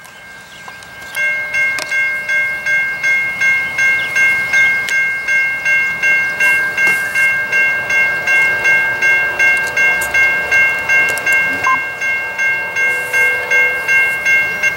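Railroad grade-crossing warning bell ringing in a steady, even rhythm of about two and a half strokes a second, starting about a second in, as the crossing signals activate for an approaching train.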